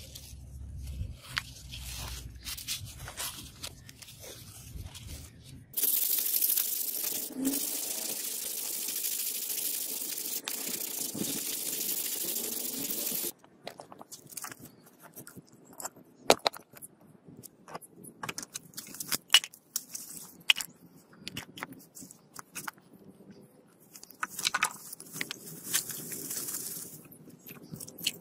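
Tape being pulled off a roll and wrapped, then a loud steady hiss for several seconds that starts and stops abruptly. After that come bricks and lumps of charcoal set down on concrete: scattered sharp knocks and clinks.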